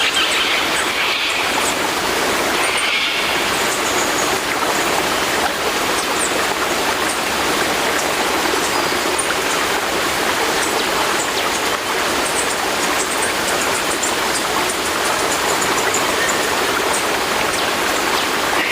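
Sea surf: a steady rush of breaking and washing waves with no clear gaps between them.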